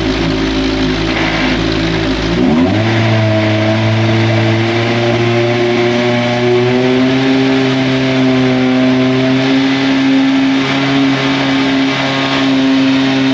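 Formula Renault 2.0 racing car's two-litre four-cylinder engine running during warm-up: a steady idle, then about two and a half seconds in the revs step up quickly and hold at a higher fast idle that creeps slightly higher.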